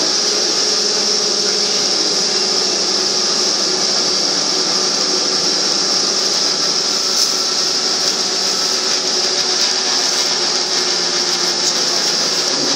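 Cabin noise of a Škoda 15TR articulated trolleybus under way: a steady electric traction-motor hum with a slight waver, over road and tyre noise and a constant hiss.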